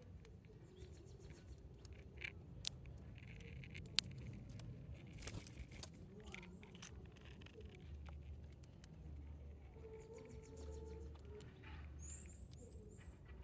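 Sparrows feeding at scattered birdseed: light clicks and pecking taps and a few short chirps, with a quick run of four high chirps near the end, over a faint low rumble.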